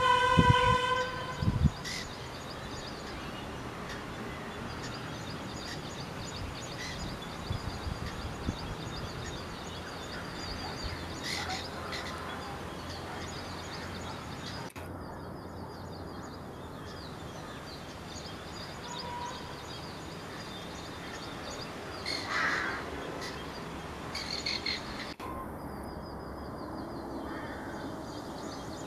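Birds calling and chirping now and then over a steady outdoor background hiss, with a clear held note about a second long at the very start and a louder call about three-quarters of the way in.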